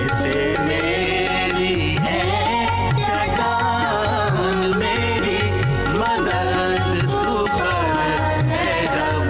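Punjabi devotional song music with no words sung: a wavering melody line over a steady, repeating drum beat.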